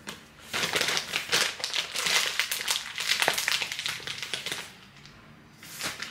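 Coffee beans being ground for an 8-gram espresso dose: a dense, crunchy crackle for about four seconds that dies away, then a single click near the end.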